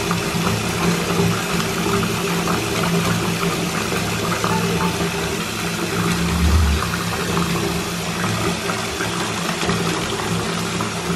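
A steady low mechanical hum, engine-like, over a constant rushing noise, with one brief low thud about six and a half seconds in.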